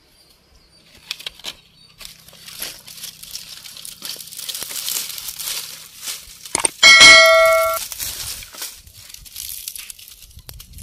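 Dry straw and dry palm fronds rustling, crackling and tearing as they are handled by hand to kindle a firewood hearth. About seven seconds in, a subscribe-button sound effect cuts in: a quick click and a loud bell-like ding lasting under a second, the loudest sound here.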